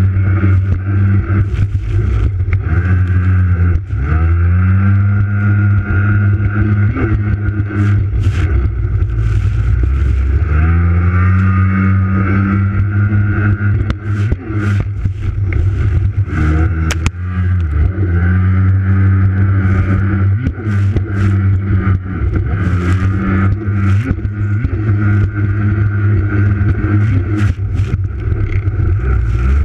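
Race jet ski engine running hard at high revs, the pitch dropping and climbing again as the throttle is eased and reopened about 4, 11 and 17 seconds in.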